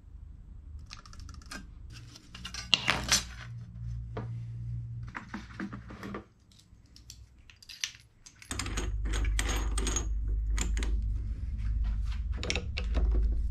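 Small metal and hard objects clicking, clinking and scraping, over a steady low machine hum that drops out for about two seconds past the middle and then returns louder.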